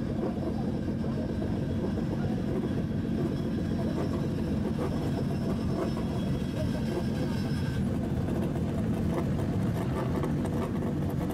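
Engine and exhaust rumble of a modified Nissan S14 Silvia creeping forward at low revs, a steady low pulsing sound.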